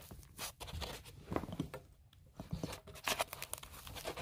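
Handling noise as hands work a small metal amplifier out of a die-cut foam case insert: foam rubbing and scraping, with scattered small knocks and rustles.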